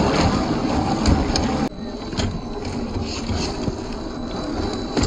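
An RC scale crawler's 540 brushed motor and geared drivetrain running under load as it crawls over loose gravel and rock. Tyres crunch and click on stone. The sound drops sharply a little under two seconds in, leaving a quieter drivetrain hum with scattered clicks from the tyres on rock.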